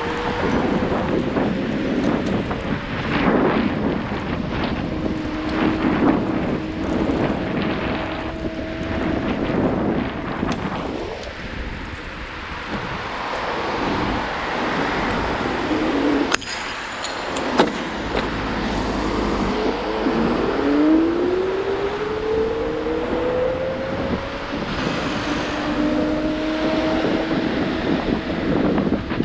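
Lime rental electric kick scooter being ridden: its motor whines, rising in pitch as it speeds up at the start and again from about two-thirds through, then holding steady, over continuous road and wind noise. Two sharp clicks a little past halfway.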